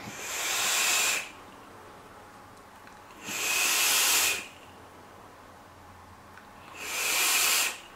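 Vape with a dual-coil rebuildable dripping atomizer being drawn on: three hissing puffs of air and vapour, each about a second long, a couple of seconds apart.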